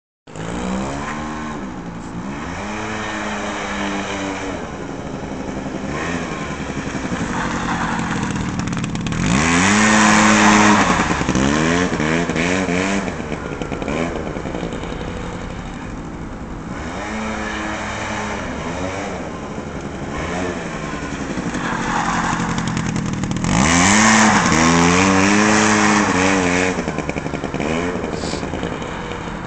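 A 50cc quad bike's small engine revving up and easing off again and again as it is ridden. It is loudest twice, about a third of the way through and again near the end, when it comes closest.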